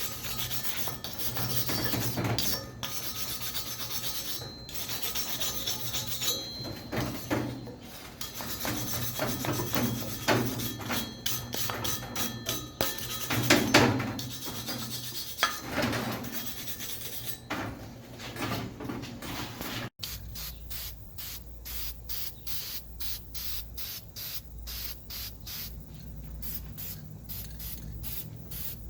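Abrasive scraping on steel. Irregular grinding and rubbing strokes give way, after a cut about two-thirds of the way in, to a fast, even rasping rhythm.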